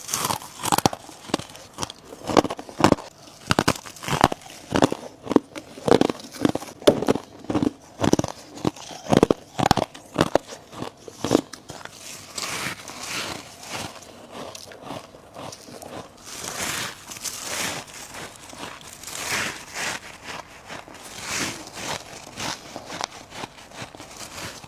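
A person biting into chunks of freezer frost ice, close to the microphone: crisp crunching bites about two a second, giving way about halfway through to softer, continuous crunching as the frost is chewed.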